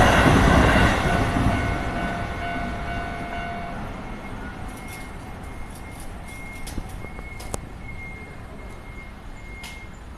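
Keio Line electric train passing the level crossing and moving away, its rumble fading over the first few seconds. A faint steady high whine lingers, with a few sharp clicks in the second half.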